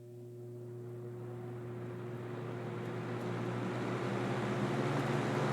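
Superlectric Model 2072 box fan, with a plastic-shelled motor, starting up on high speed. A steady motor hum is joined by a rushing of air that grows louder as the big square blades come up to speed.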